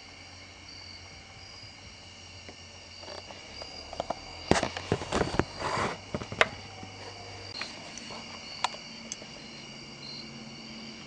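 Crickets chirping steadily in the background, with a cluster of small sharp clicks and clatters of carburetor parts being handled from about four to six and a half seconds in, and a couple more clicks later.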